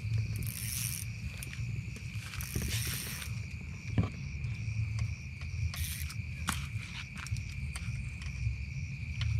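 Crickets trilling steadily as one high, unbroken tone over a constant low rumble. A few sharp clicks and several short hissing bursts come and go, the loudest click about four seconds in.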